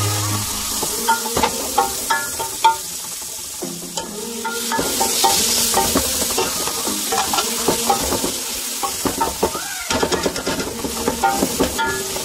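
Onions, garlic, ginger and tomatoes sautéing in oil in an aluminium pot, a light sizzle under the repeated scrapes and knocks of a plastic spoon stirring against the pot's bottom and sides.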